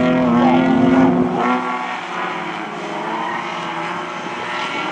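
Several racing car engines running hard together, their overlapping notes rising and falling as the drivers rev through a corner. The engines are loudest in the first second or so, then ease off slightly.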